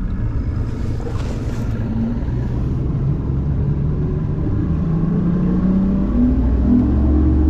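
Bass boat's outboard motor running under way, its pitch rising steadily as it speeds up.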